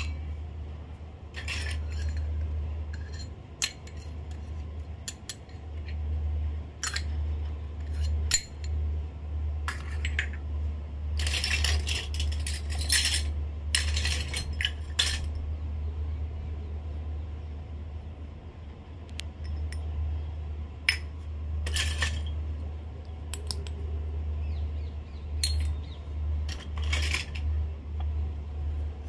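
Miniature stainless-steel cups and pots from a toy kitchen set clinking and tapping as they are handled and set down on a concrete floor: a scattering of separate sharp metallic clinks, thickest about halfway through, over a steady low hum.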